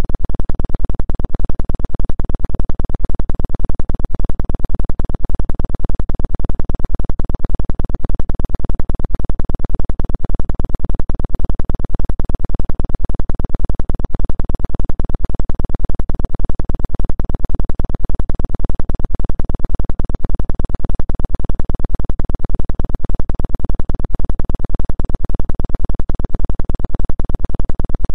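Synthesized drone tone, strongest in the deep bass, pulsing quickly and evenly without change; it is a 2 Hz 'healing frequency' track.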